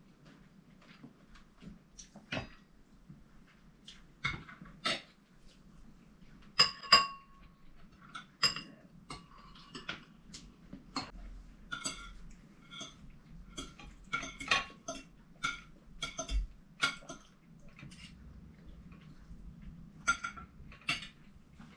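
Metal spoons and forks clinking and scraping against ceramic plates and bowls during a meal, in irregular, quick, sharp clinks.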